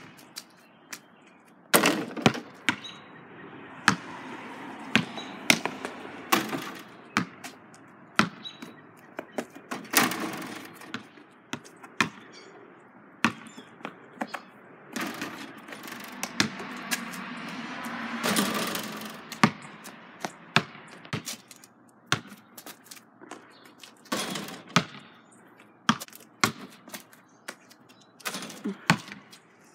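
Basketball bouncing on an asphalt driveway: many sharp bounces at irregular intervals, spread through the whole stretch.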